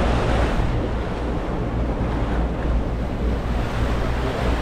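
Wind buffeting the microphone over the rushing wash of a boat's wake while under way at sea, with a steady low rumble underneath.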